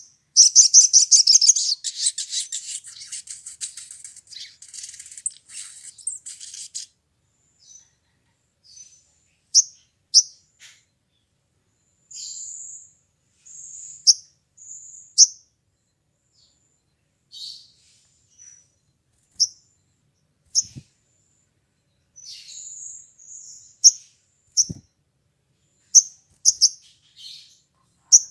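Male olive-backed sunbird singing: a rapid, dense, high trill for about the first seven seconds, then sharp high chips and short twittering phrases every second or so. Two faint low knocks come in the second half.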